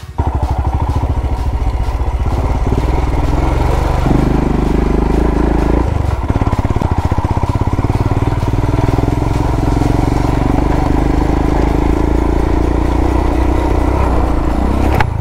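Royal Enfield Himalayan's 411 cc single-cylinder engine running under throttle while riding a dirt off-road track, heard from on the bike, its note shifting about four seconds in and again about two seconds later.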